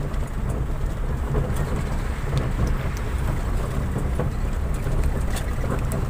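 Motor vehicle driving over a rough dirt road, heard from inside the cab: a steady low rumble of engine and road noise, with scattered light ticks and rattles.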